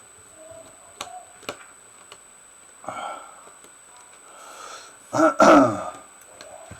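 A few light clicks of small tools on the phone, then, about five seconds in, a short wordless vocal groan that falls in pitch, the loudest sound here.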